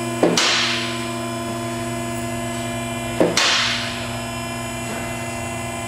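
Two-post Rotary Lift raising a pickup truck: the steady electric hum of its hydraulic pump motor, with a sharp metallic clack twice, about three seconds apart, as the lift's safety locks catch.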